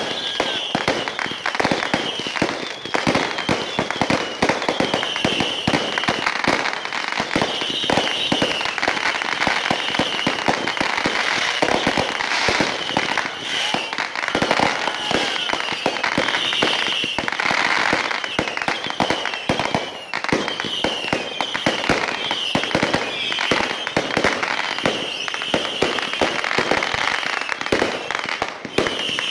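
Fireworks and firecrackers going off in a dense, continuous barrage: many sharp bangs and crackles a second, without a pause.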